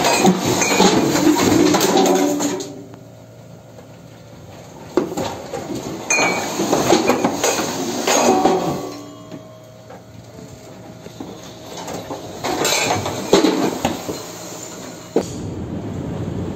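Loose objects in a ship's cabin sliding and clattering across the floor as the ship rolls heavily, in three surges of rattling and banging with quieter stretches between. Near the end, a steady rush of storm wind and sea.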